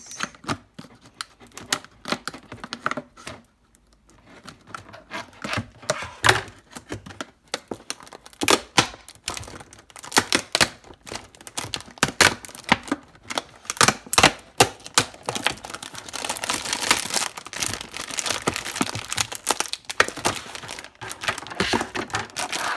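Na! Na! Na! Surprise Sparkle toy packaging being handled and opened: a run of sharp clicks and taps, then, from about sixteen seconds in, steady crinkling and rustling of the wrapping.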